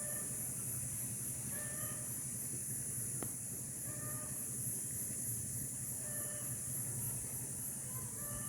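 Outdoor ambience: a steady high-pitched insect chirring over a low hum, with short faint animal calls now and then.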